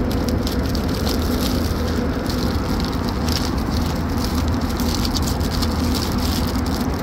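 Plastic wrappers crinkling and rustling as hands rummage through a hygiene-kit pouch, over the steady low rumble of an Airbus A380's cabin in flight.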